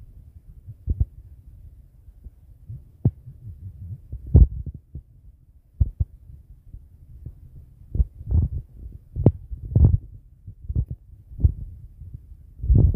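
Low rumbling noise on a handheld phone's microphone, broken by a dozen or so irregular dull thumps, the loudest about four seconds in and again near the end.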